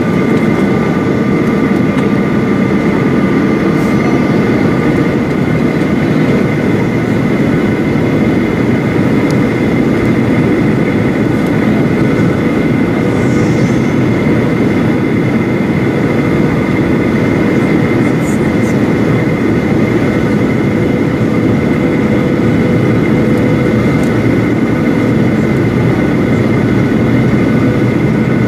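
Cabin noise of a Boeing 737-800 on approach, heard from a window seat beside the wing and CFM56-7B engine: a loud, steady rush of air and engine with several steady whining tones held at constant pitch.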